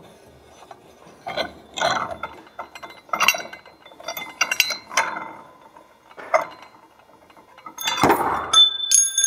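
Metal clinks and knocks from a spring-compressor tool being worked and handled on a snowmobile secondary clutch, about half a dozen separate strikes. Near the end a loose metal rod clanks down and rings briefly with a high, bell-like tone.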